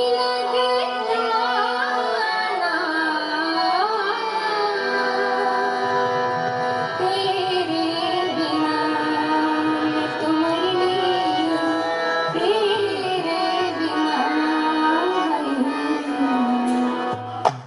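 Solo female voice singing a Haryanvi ragni folk song into a microphone. Instrumental accompaniment holds steady notes beneath the bending sung melody.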